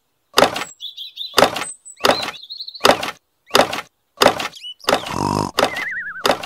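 A sickle-like blade hacking at a thin metal pole: a run of about eight sharp scraping strikes, roughly one every 0.7 seconds. Short high wavering whistle tones sound between some of the strikes.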